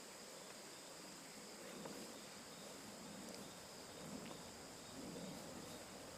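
Insects trilling steadily in high, even tones, faint, with soft rustling underneath.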